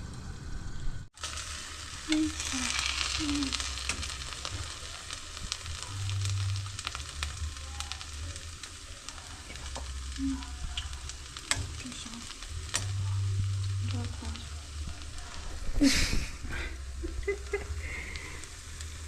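Food sizzling in a pot on the stove, a steady hiss with small pops and clicks. A sharp knock about three quarters of the way through.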